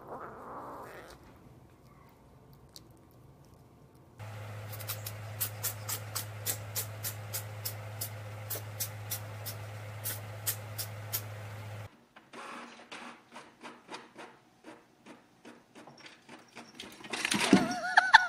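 A steady low hum with a click about twice a second, stopping abruptly, then a Canon inkjet printer running, its mechanism ticking about three times a second. Near the end a loud cat meow.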